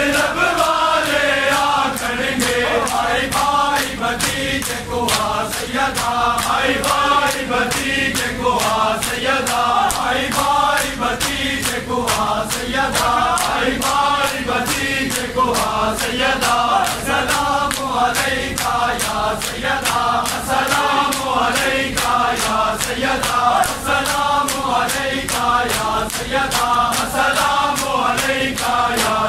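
A large group of men chanting a noha in unison, with a steady beat of chest-beating matam strokes about two a second.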